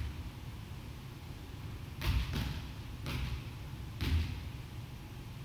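Volleyball being struck and bouncing on a wooden gym floor: four sharp smacks and thuds spread over about two seconds, starting about two seconds in.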